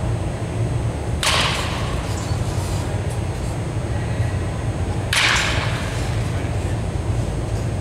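Two baseball bat swings about four seconds apart, each a sudden sharp hit with a short swishing tail as the ball is driven into the batting-cage net, over a steady low hum.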